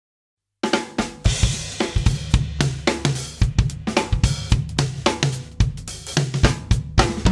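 Drum kit played in a busy groove: bass drum, snare, hi-hat and cymbals, on a Canopus kit with Murat Diril cymbals. It starts abruptly about half a second in.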